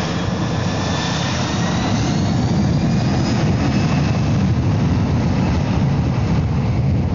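Jet airliner engines at takeoff power through the takeoff roll and liftoff: a loud, steady noise that starts abruptly, with faint high whines rising in pitch over the first few seconds.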